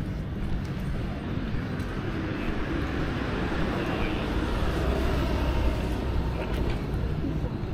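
City street traffic: a passing vehicle's engine and tyre noise rises to its loudest about five seconds in and then eases off, with people's voices in the background.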